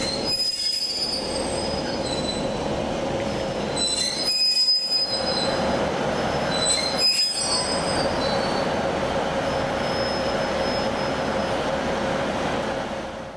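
ScotRail train running on the rails with high-pitched wheel squeal over a steady hum. The sound drops away suddenly near the end.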